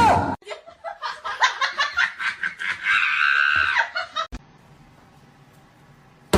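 High-pitched laughter for about four seconds that cuts off suddenly, followed by faint hiss.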